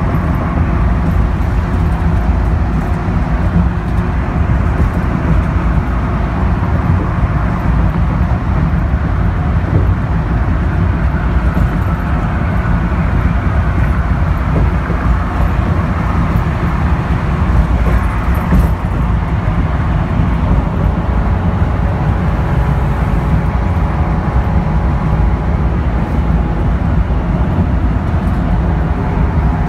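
Interior ride noise of a NABI 42-BRT transit bus at freeway speed: its Cummins Westport ISL G natural-gas engine and Allison B400R automatic transmission running steadily under a heavy, even road and tyre noise. A faint steady whine comes in near the end.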